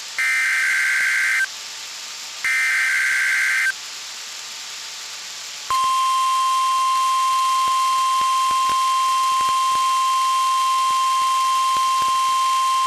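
NOAA Weather Radio test tones: the last two bursts of the SAME digital header, warbling data bursts about a second long with a second's gap between, then, after a two-second pause, the steady 1050 Hz warning alarm tone that wakes alert receivers, starting about six seconds in.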